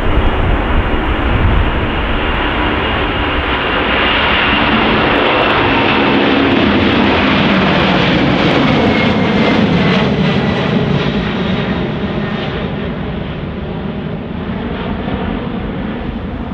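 Jet airliner's engines at take-off power as it passes, building to a peak in the middle and then fading, with a high whine that falls in pitch as the aircraft goes by.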